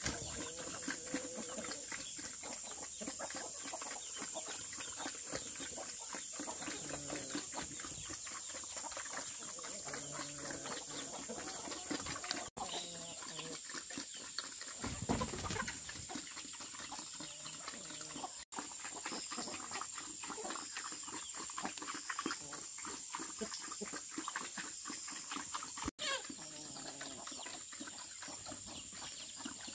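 Chickens clucking over steady outdoor ambience with a constant high hiss, broken by three brief dropouts.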